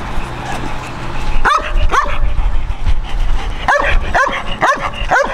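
A dog barking in short sharp barks, two about a second and a half in, then four in quick succession about half a second apart near the end. This is a protection-training dog barking at the decoy, the barking that is rewarded with the bite.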